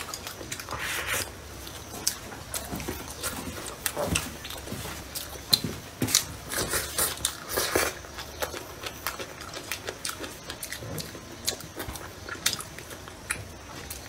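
A person eating from a bowl with chopsticks: irregular wet chewing and slurping of mouthfuls, with scattered sharp clicks.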